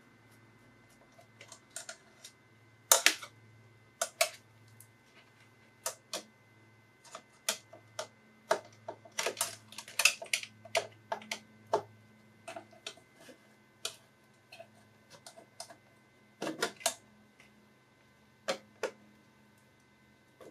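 Irregular sharp clicks and taps of a screwdriver and small metal and plastic parts being handled while a computer power supply is taken apart, over a faint steady hum.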